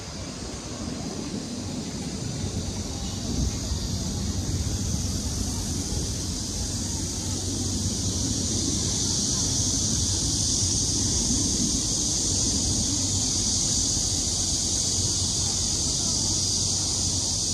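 Outdoor ambience: a low rumble of wind on the microphone and distant traffic, under a steady high hiss that grows louder partway through.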